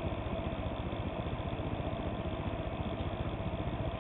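Blower fan of a DIY pop-can solar air heater running steadily and pushing hot air out of the vent: an even hum with one steady tone and a fast low flutter.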